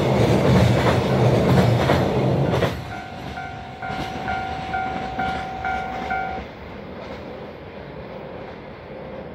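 Container wagons of a freight train rolling past close by, wheels clacking over rail joints, until the last wagon clears about three seconds in. A level-crossing alarm then rings at about three beats a second and stops about three seconds later, leaving the train's fading rumble.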